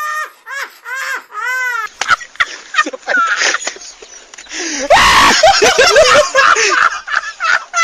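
A high-pitched voice wailing and whimpering in a string of short rising-and-falling cries, then several voices laughing and calling, with a loud outburst about five seconds in.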